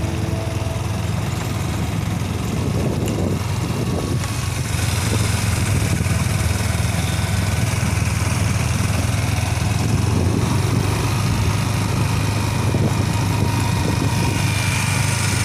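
Motorcycle engine running at a steady low hum while riding.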